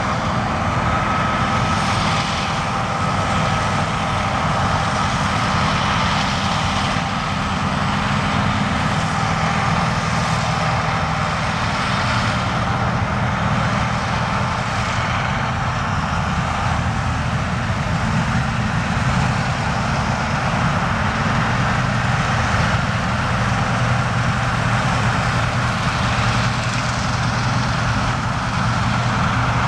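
Heavy diesel farm machinery running steadily in the field, with the low engine hum shifting slowly in pitch and a steady high whine that fades about ten seconds in.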